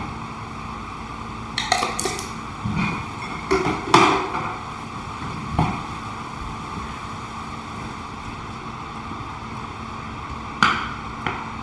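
Kitchen cooking sounds: several short clinks and knocks of utensils against pots and dishes, a few seconds apart, over a steady background hum.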